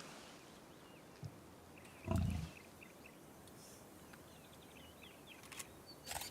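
A lion gives one short, deep grunt about two seconds in, with birds chirping faintly behind and a couple of sharp clicks near the end.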